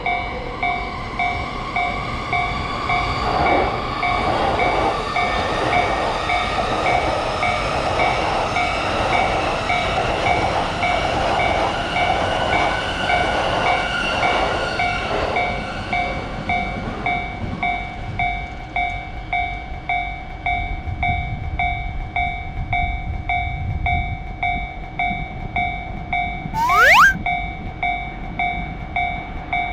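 Japanese railroad crossing alarm ringing in a steady, evenly repeated electronic ding, while a passing train's rushing noise fills the first half and then fades away. Shortly before the end a short, sharp rising glide sounds once, like a cartoon sound effect.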